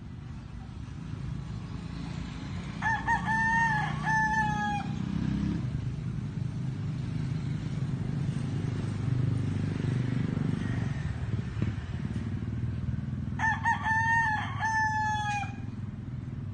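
A rooster crowing twice, about ten seconds apart, each crow about two seconds long. A steady low rumble runs underneath.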